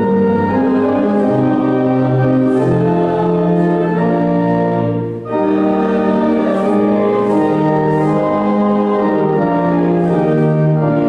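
Organ playing slow, sustained hymn-style chords that change every second or so, with a brief break about five seconds in.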